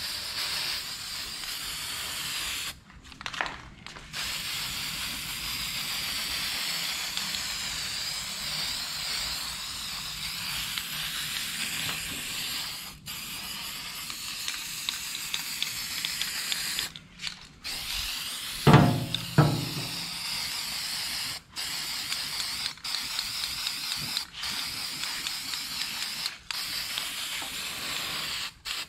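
Aerosol can of Rust-Oleum Rust Reformer spraying onto bare steel, a steady hiss in long bursts with several short breaks where the nozzle is let go. A short, louder, low sound breaks in about two-thirds of the way through.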